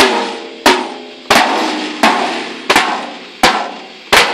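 Acoustic drum kit struck with sticks in slow, evenly spaced single strokes, about one every two-thirds of a second, each drum head ringing out between hits.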